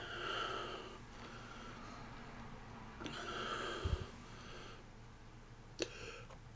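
A man taking two long, noisy breaths about three seconds apart while preparing a soda burp. There is a soft low thump between the breaths and a click near the end.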